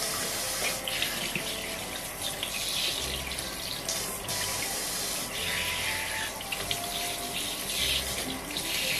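Kitchen tap running into a sink, the stream splashing over hands and a freshly gutted sardine being rinsed under it. The rush of water is steady, with small changes as the hands move in and out of the stream.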